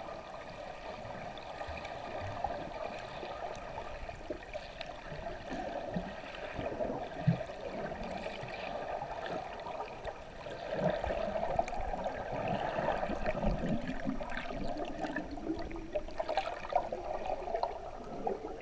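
Muffled gurgling and bubbling of water heard from underwater, with scattered small clicks, growing louder about eleven seconds in.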